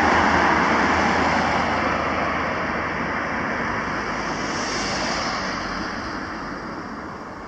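A passing vehicle's loud rushing roar, loudest at the start and fading steadily as it moves away.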